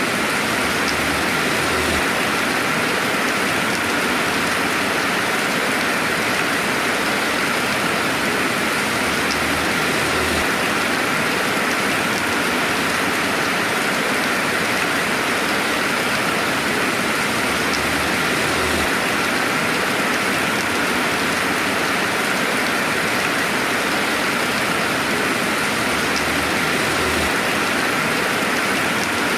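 Steady rain falling, a dense even hiss of rainfall with no thunder.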